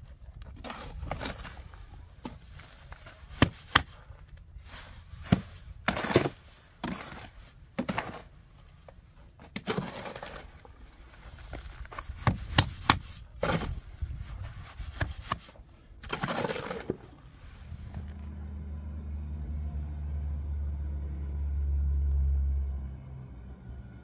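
Steel shovel scraping and clanking against a metal wheelbarrow as wet cement mix is turned over: quick uneven scrapes and knocks, some sharp. After about eighteen seconds they stop and a low rumble swells and fades.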